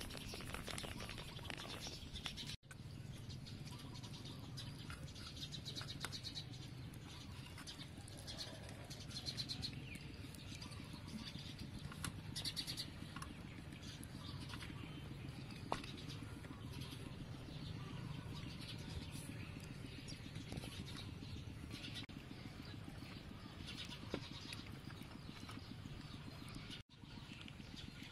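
Dry flour crunching and rustling on a metal tray as pork ribs are pressed and rolled in it by hand, a soft crackle with small scattered clicks over a steady low hum.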